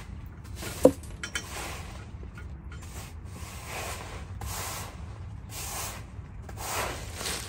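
Push broom sweeping fallen leaves across paving: repeated rustling swishes, about one a second, with one sharp knock about a second in.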